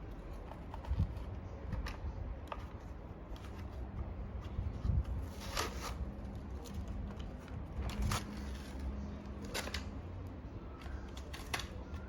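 A Hot Wheels blister pack being opened by hand: the plastic bubble and cardboard backing crackle and click in scattered bursts, with a few soft thumps as the package is handled.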